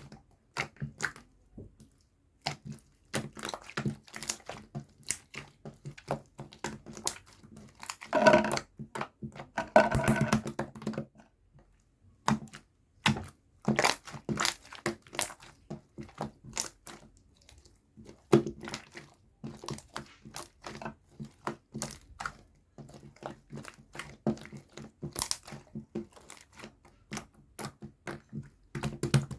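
Slime being squeezed, poked and stretched by hand, giving quick irregular runs of sticky clicks, pops and crackles. A denser, louder stretch of squishing comes about eight to eleven seconds in.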